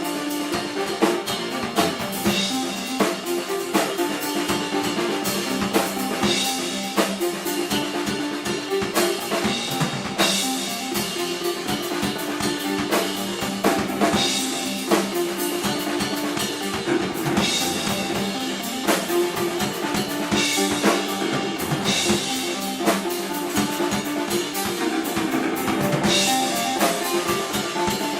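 A band playing live: a drum kit with kick and snare hits and cymbal crashes every few seconds, over steady held chords.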